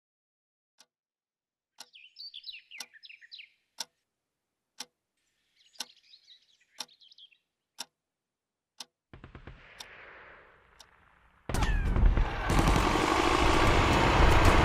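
A clock ticking about once a second in a quiet room, with two short spells of bird chirping. A low rumble starts about nine seconds in, and loud tank engine noise cuts in suddenly near the end and is the loudest sound.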